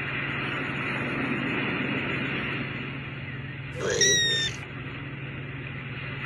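A young kitten gives one short, high, slightly falling meow about four seconds in, over a steady background hiss and low hum.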